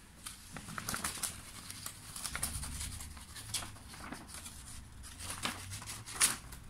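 Scattered light rustles and taps as a kitten bats at a sheet of paper on a woven plastic mat, with one sharper tap near the end.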